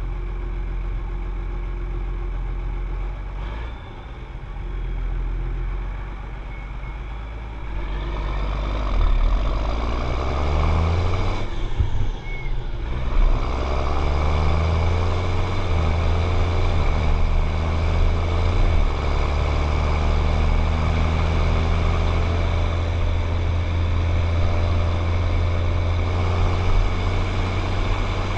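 John Deere 7710 tractor's six-cylinder diesel engine running steadily, then getting louder about eight seconds in, its pitch stepping up and down several times before it settles into a steady, louder run. A thin steady high whine sounds throughout.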